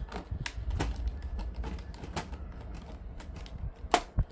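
Irregular sharp clicks and taps of a hand tool against metal parts and a hose clamp of the dishwasher being taken apart, with two louder clicks near the end.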